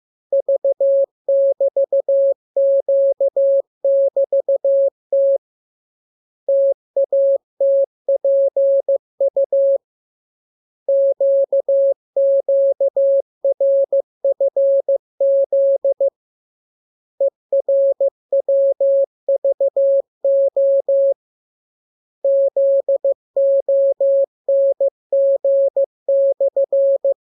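Morse code practice tone: a single steady-pitched beep keyed on and off in dots and dashes at a brisk speed. It comes in runs of characters separated by pauses of about a second.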